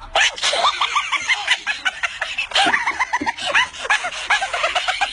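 High-pitched human laughter, loud and continuous, in quick repeated bursts.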